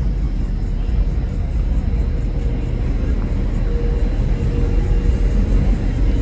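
Car engines running at idle: a steady low rumble.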